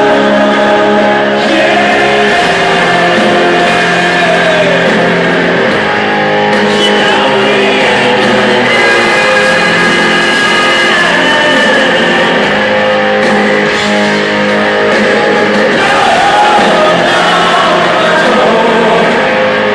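Rock band playing live: loud electric guitars with a singer's voice over them.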